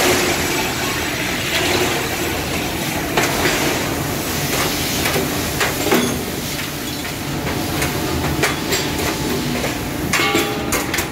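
Die-casting foundry machinery running: a loud, steady mechanical din with sharp metallic clanks every second or two, thicker near the end.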